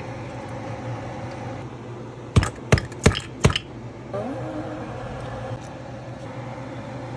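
Four sharp knocks in quick succession, a little past two seconds in, over a steady low hum.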